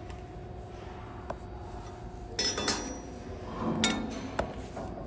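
Steel extruder parts clinking together as they are handled: a sharp metallic clink with a brief high ring about halfway through, then two more lighter clinks a second or two later, over a faint steady hum.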